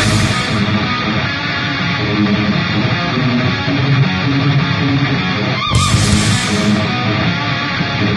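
Background music: a rock track with electric guitar.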